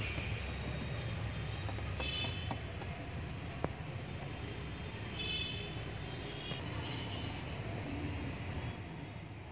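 A steady low rumble of background noise, with a few brief high-pitched bird chirps about four times.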